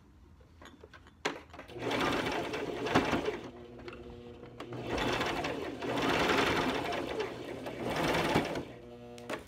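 Brother electric sewing machine stitching through folded cloth. It starts up about two seconds in, runs more slowly for a moment around the middle, then runs fast again and stops shortly before the end.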